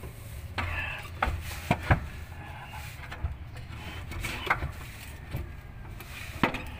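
Hands handling metal parts and tools under a vehicle during transmission refitting: scattered sharp knocks and clicks with some rubbing, the loudest a couple of knocks about two seconds in and another near the end.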